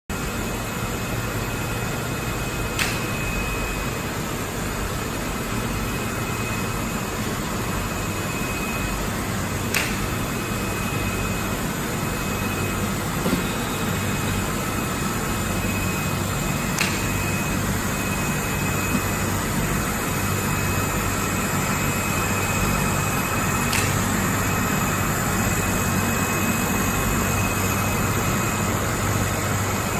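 Automatic production line for flexible magnetic strip running steadily, with a constant hum and a thin high whine, and a sharp click about every seven seconds, four times in all.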